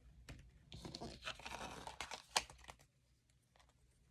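Tarot cards being handled: a papery rustle and sliding of cards with a few light taps and clicks, fading away in the last second or so.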